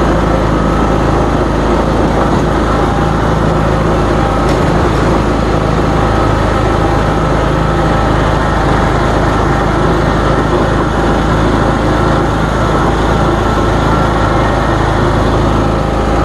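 John Deere lawn mower engine running steadily at constant speed while mowing thick, wet grass.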